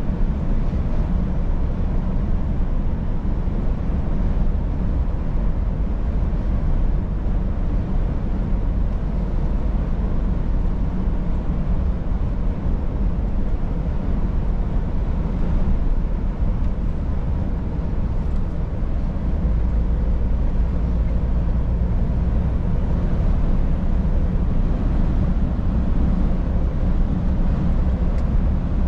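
Scania S500 truck on the move: a steady low engine drone with road noise.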